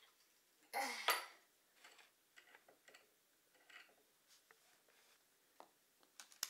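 Skateboard hardware being handled: the metal skate tool, wheels and bearings give light clicks and clinks. A louder brief rattle comes about a second in, and a couple of sharp clicks near the end.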